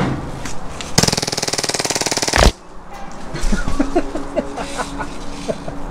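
Action Army AAP-01 gas blowback airsoft pistol firing one rapid full-auto burst of about a second and a half, a fast even clatter of shots that stops abruptly. A man then laughs.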